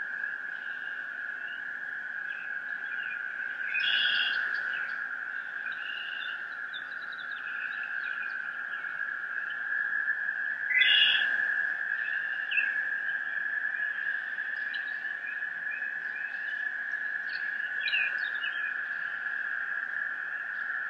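Recorded soundscape: a steady high-pitched drone with chirping, bird-like calls swelling over it about every seven seconds.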